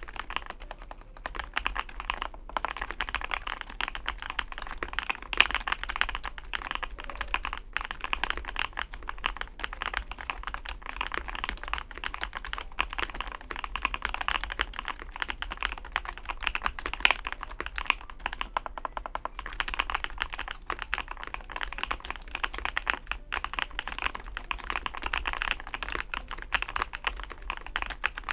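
Fast, continuous typing on a Chosfox x masro Fox65 gasket-mount mechanical keyboard: a dense stream of key clicks, broken by a few short pauses.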